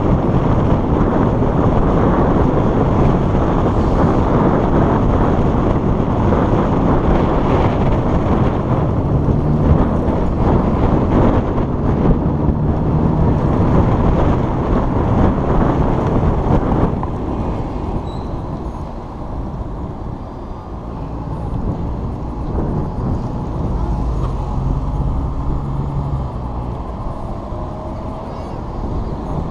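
Street traffic: cars and buses running and passing, a dense steady rush of road noise with a low engine hum. About halfway through, the hissy upper part of the noise drops away and it gets a little quieter.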